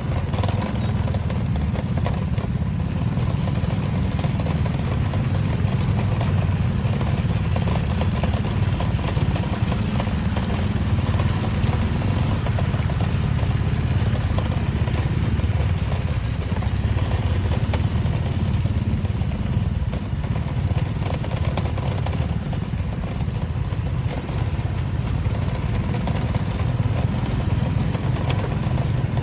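Motorcycle engine running steadily at low revs while riding, with a continuous light rattle over it.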